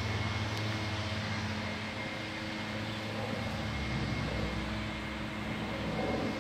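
Steady low engine hum of a running vehicle, with a deeper rumble joining about four seconds in.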